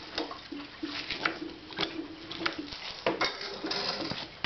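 Clutch and open belt primary of a 1984 Harley-Davidson FXWG being worked by hand in first gear with the clutch pulled in, engine not running: a string of light metallic clicks and clinks with a faint low squeak coming and going, busier and louder from about three seconds in.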